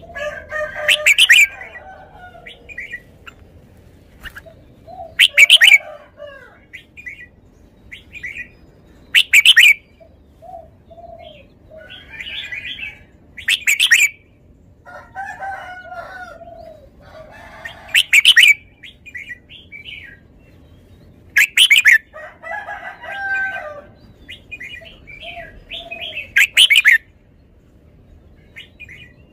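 Red-whiskered bulbul singing: a loud, short whistled phrase about every four seconds, seven in all, with softer chirps and warbling notes between them.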